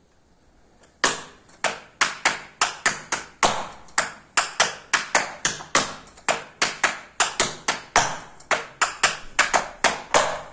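Tap shoes striking a tap board in a double buck time step (stamp, hop, flap, flap, step, step, then the same on the other side): sharp metal taps in quick, uneven groups, starting about a second in and repeating until just before the end.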